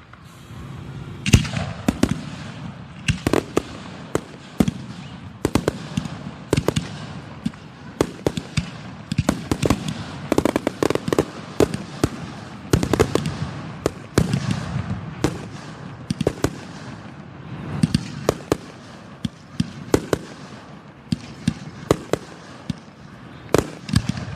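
Fireworks display: aerial shells bursting one after another, a dense run of sharp bangs, several a second at times.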